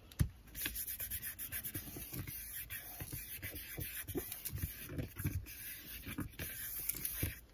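Hands rubbing and pressing a sheet of paper down onto a stamping platform: a continuous run of short, irregular scuffing strokes with soft knocks.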